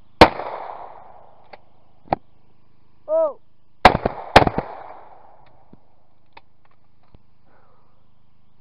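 Shotgun fired at clay targets: one shot with a rolling echo, then, after a short shouted call, a double of two shots about half a second apart. A few light clicks come between and after the shots.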